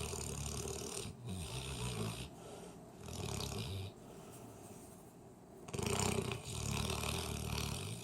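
Mastiff snoring rather loudly: three long, low, rough snores with quieter breaths between them.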